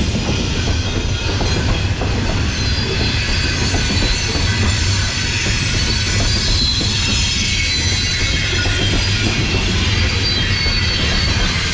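CSX coal train's hopper cars rolling past, a steady low rumble of steel wheels on rail with a high-pitched wheel squeal over it.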